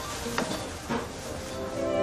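Soft background music from the soundtrack, with two faint knocks about half a second apart early on; the music swells near the end as a scene-change cue.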